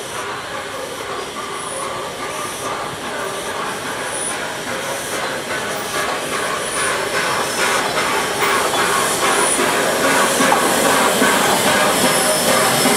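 Peppercorn A1 Pacific steam locomotive 60163 Tornado running alongside the platform: steam hissing and its wheels clattering on the rails, growing steadily louder as it comes close by.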